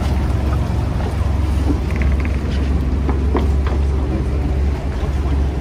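Fishing boat's engine machinery running with a steady low drone, with a few faint knocks over it.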